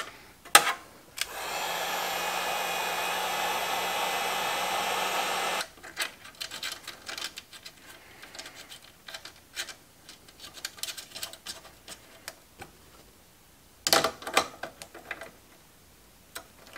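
A small electric blower runs steadily for about four seconds with a low hum under its hiss, then cuts off. Small clicks and knocks of handling follow, with a louder cluster near the end.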